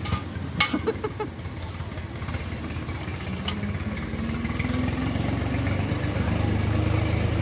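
An engine running steadily, its low drone slowly rising in pitch and loudness from about three seconds in, with a few light clicks near the start.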